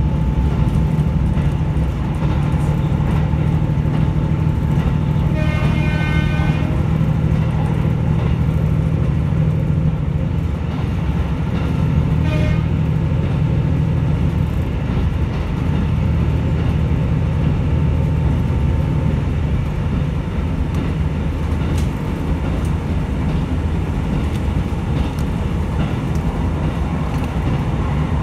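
KiHa 75 diesel railcar running at speed, a steady low rumble of engine and wheels on the rails. Twice a brief pitched ringing passes, about a second long some six seconds in and shorter around twelve seconds in.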